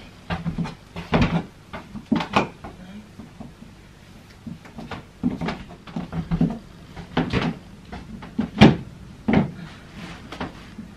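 Footsteps in shoes on a hard floor: irregular sharp knocks and thumps, about one every second, as she walks and shifts her weight.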